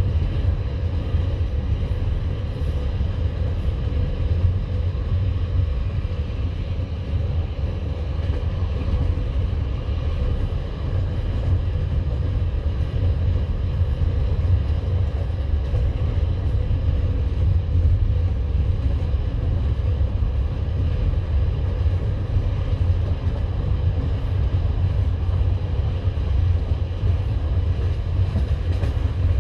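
Passenger train coach running at speed: a steady low rumble of wheels on the rails, with the clatter of the wheels over the rail joints.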